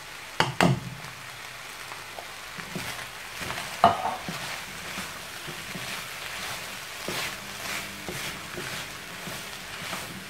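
Mince and chopped vegetables sizzling in a frying pan while a spatula stirs kidney beans through them, with scraping strokes of the stirring and two sharp knocks, one about half a second in and a louder one about four seconds in.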